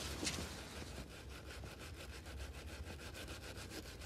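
Faint, rapid rhythmic scraping or rubbing strokes, several a second, that become regular about a second in, over a low steady hum.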